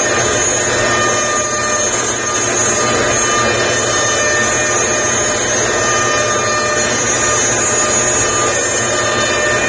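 Two CNC routers, a Shapeoko among them, cutting wood at the same time: their router spindles whine together in a steady chord of high tones over a constant rush of motor and cutting noise.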